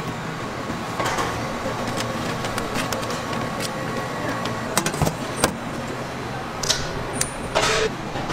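Steady background noise of a busy street food stall, with scattered sharp clicks and knocks in the second half and a short hiss near the end.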